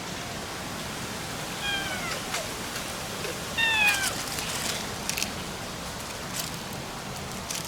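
A cat meows twice: two short meows falling slightly in pitch, about two seconds apart, over a steady hiss. A few soft rustles and clicks follow.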